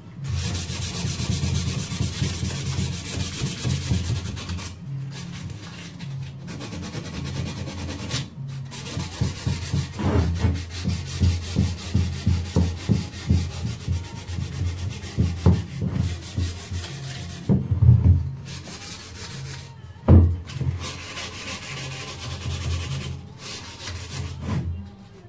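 Hand sanding on a black-painted frame. It starts as steady scraping, then turns to short rubbing strokes a few per second. A single sharp knock, the loudest sound, comes about twenty seconds in.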